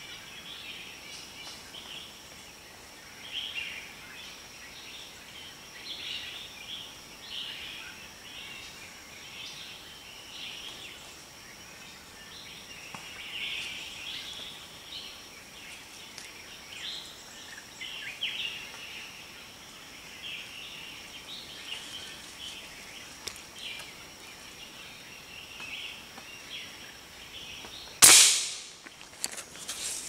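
Birds calling in the canopy over a steady high insect whine, then a single sharp shot from a scoped air rifle about two seconds before the end.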